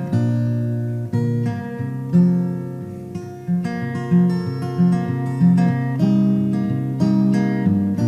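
Acoustic guitar playing chords and single notes, struck about once or twice a second and left to ring, with no singing.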